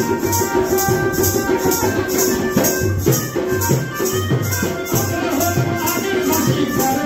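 Music with a shaker keeping an even beat, about three to four strokes a second, over low drum beats and sustained tones.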